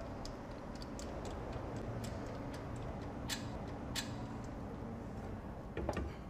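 Scattered light metallic clicks and ticks as a metal test fixture and its cables are handled, over a steady low hum, with a louder clatter near the end.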